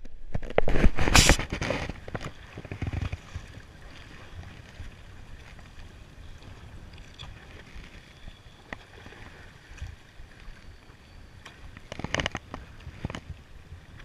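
Handling knocks and rubbing on a body-worn camera as it is adjusted, then steady wind and sea water lapping around the boat, with a few sharp clicks and another burst of knocks near the end.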